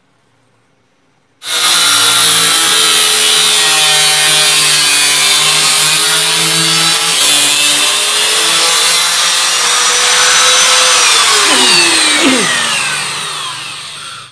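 Electric angle grinder with a cutting disc cutting through a thin sheet, starting suddenly about a second and a half in and running steadily. Near the end the grinder comes off the cut and its pitch falls as it spins down.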